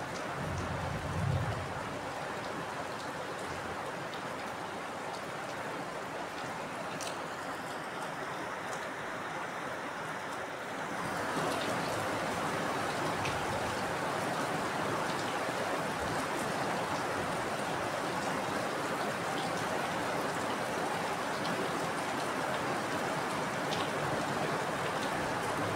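Steady heavy rainfall with scattered drips. A brief low rumble comes about a second in, and the rain grows louder and brighter about eleven seconds in.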